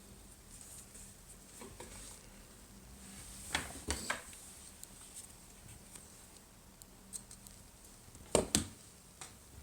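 Small clicks and taps of double-sided tape being handled and laid along the edges of a phone, with two sharper clicks in the middle and a louder pair near the end.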